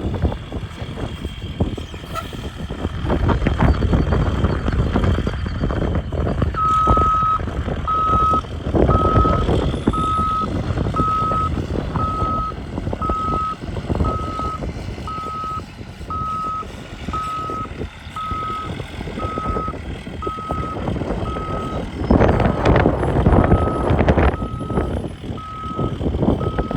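2002 Blue Bird school bus engine running under throttle while backing up. Its back-up alarm starts beeping about a quarter of the way in, one steady high beep about once a second until the end. The engine noise swells a few times as it is given gas.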